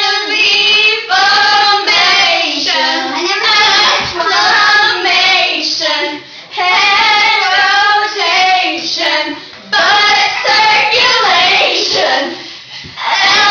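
Girls singing loudly, with short breaks between phrases.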